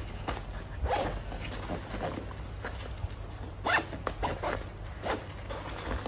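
Fabric backpack being handled: short, irregular rustles and scrapes as its flap, straps and buckle are worked. The loudest scrape comes a little under four seconds in.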